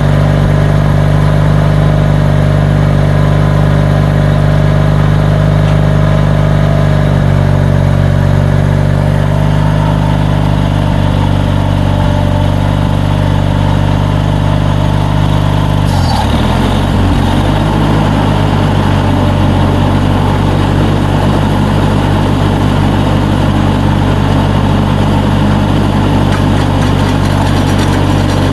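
Riding lawnmower engine running steadily while driving a front-tine tiller. About halfway through, its pitch drops sharply and comes back up within a second or two, as the engine bogs under load and recovers.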